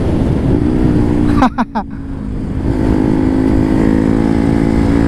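Motorcycle engine heard from the rider's helmet camera with wind rush, its pitch rising under acceleration. About a second and a half in the sound dips briefly as the throttle is cut for a gear change, then the engine pulls again at a steady pitch.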